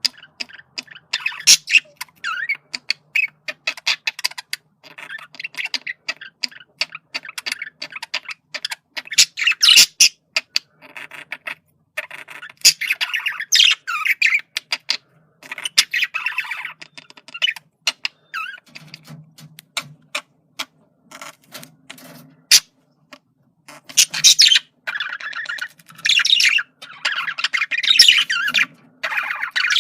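Male budgerigar chattering: a fast run of clicks, squeaks and warbled chirps in bursts with short pauses, busiest near the end.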